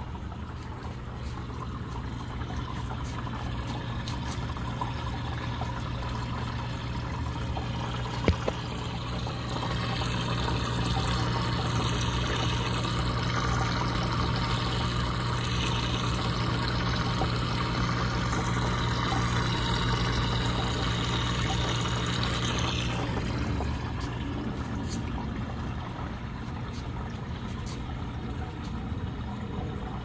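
Water swirling and splashing in a glass vortex water fountain, over the steady hum of its small water pump. The water noise swells from about ten seconds in and eases off again a little after twenty seconds, with one sharp click about eight seconds in.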